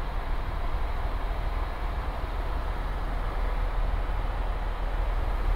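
Steady cabin noise of an Airbus EC130 T2 helicopter in cruise: its Arriel 2D turboshaft and rotors make a continuous low rumble with an even hiss above it.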